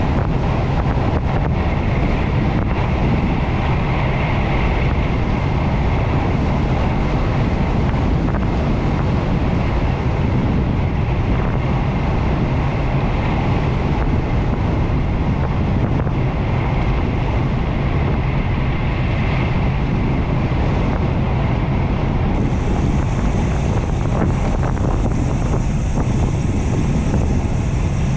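Steady rush of wind over the microphone on a road bicycle descending at speed.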